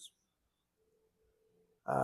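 Near silence: room tone, with a very faint steady hum in the middle, between a man's sentences; his voice trails off at the start and starts again just before the end.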